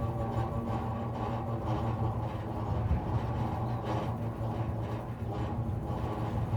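Electricity pole and its power lines humming in the wind like an aeolian harp: a steady drone with a deep low hum and many held tones above it that waver slightly.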